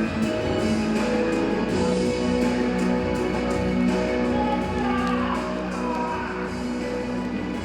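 Music playing, with guitar.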